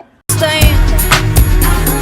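Loud pop or R&B song with a heavy bass and a beat, starting abruptly about a quarter second in.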